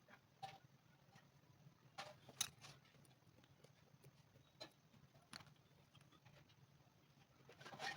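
Near silence: a faint steady low hum with about six short, light clicks and taps scattered through it, the sharpest about two and a half seconds in.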